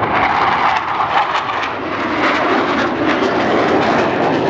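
Fighter jet's engines running loud as it flies past trailing smoke: a steady jet noise with many short crackles through it.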